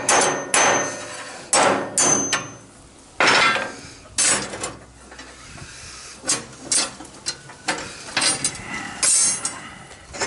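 Claw hammer striking a steel rod to bend a slight curve into it: a run of irregular metal-on-metal blows, some with a short ring, with a pause about halfway through before quicker blows resume.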